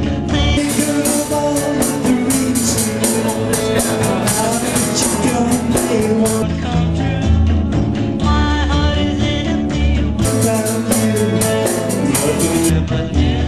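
Live rock-and-roll band playing: electric guitars, bass and drums, with a cymbal struck in a steady rhythm through two long stretches, and some singing.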